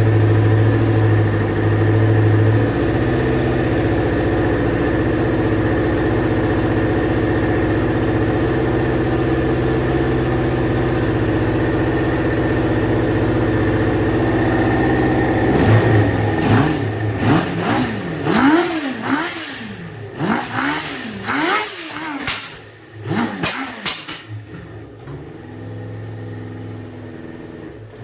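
Kawasaki Ninja ZX-7R's 750 cc inline-four running at a steady idle while warming up after a first start. About halfway through, the throttle is blipped about eight times in quick succession, each rev rising and falling, and then the engine settles back to a quieter idle before the sound cuts off suddenly.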